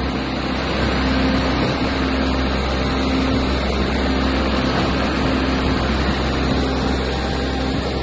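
Diesel engines of a concrete pump and a self-loading concrete mixer running steadily under load while concrete is pumped: a continuous low mechanical drone.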